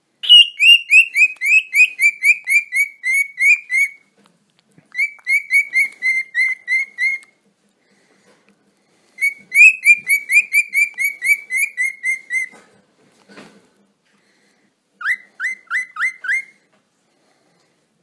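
Cockatiel whistling in four bursts of rapid, repeated chirping notes, about four a second, each burst lasting two to four seconds with short pauses between; the last burst is shorter and its notes sweep upward.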